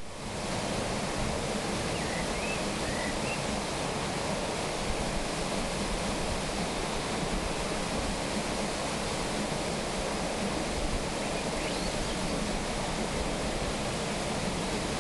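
Water rushing steadily through the sluice and under an undershot waterwheel of Corten steel as it turns, an even noisy rush with no let-up.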